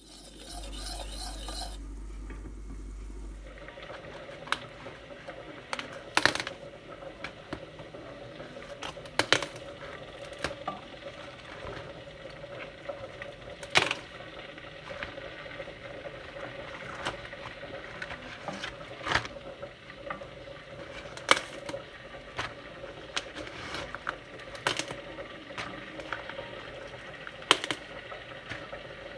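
Kitchen utensils clinking and tapping against dishes and pans: sharp knocks every one to three seconds over a steady hum.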